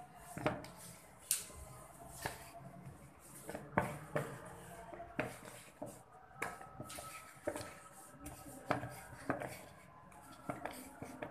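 Kitchen utensils and dishes clinking and knocking at uneven intervals, roughly once a second, during doughnut preparation.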